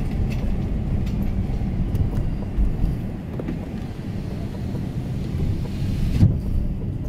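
Steady low rumble of a car on the move, engine and tyre noise heard from inside the cabin, with a brief knock about six seconds in.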